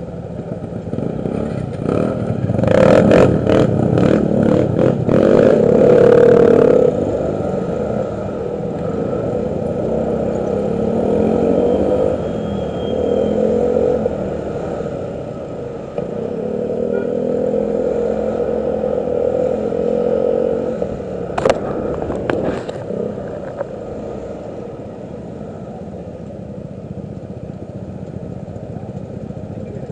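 Motorcycle engines running in slow stop-and-go traffic, the engine note rising and falling with the throttle. A louder stretch with rattling comes a few seconds in, and a few sharp clicks come about two-thirds of the way through.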